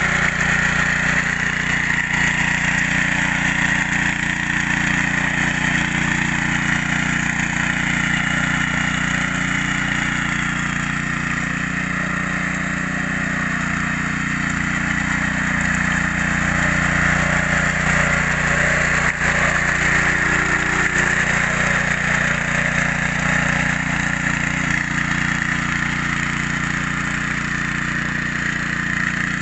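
Small Honda petrol engine on a two-wheel hand tractor running steadily under load as the tractor works a flooded rice paddy.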